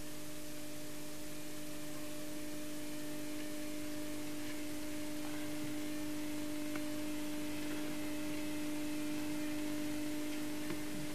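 A steady electrical hum with a faint hiss, and two faint ticks, one about seven seconds in and one near the end.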